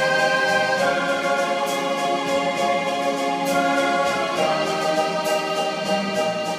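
Karaoke backing track playing its instrumental intro: held chords that change about a second in and again past four seconds.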